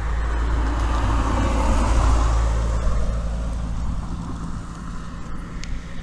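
A road vehicle passing by: tyre and engine noise swells to a peak about two seconds in, then fades away. Underneath is a steady low hum.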